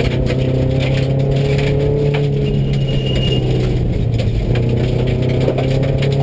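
Subaru rally car's flat-four engine pulling at steady revs, heard from inside the cabin, with gravel rattling and knocking against the car. The engine note dips about four and a half seconds in, then climbs slowly near the end.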